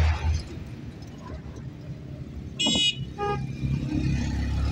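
Street traffic rumbling, with two short vehicle horn toots close together about two and a half seconds in. The first toot is higher than the second.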